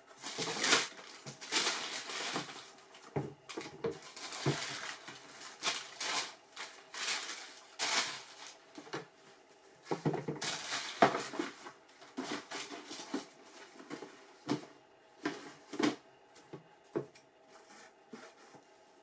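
Tissue paper rustling and crinkling while sneakers are unwrapped and lifted out of a cardboard shoebox, with handling noise from the box and several short soft thumps as the shoes and box are set down on a wooden table.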